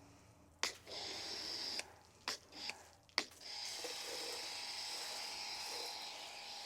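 Pressure-washer foam cannon spraying soap foam, a steady hiss that stops and starts twice, with sharp clicks in the pauses that fit the trigger gun being released and squeezed.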